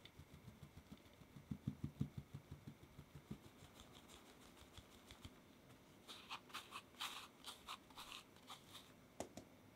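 Faint tapping of a handled metal mesh sieve as flour and cocoa powder are sifted through it into a glass bowl. Soft low taps come first; later there is a run of lighter, sharper ticks at about five a second.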